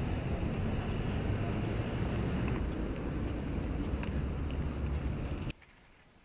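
Wind buffeting the camera microphone: a steady low rumble that cuts off abruptly about five and a half seconds in, leaving near silence.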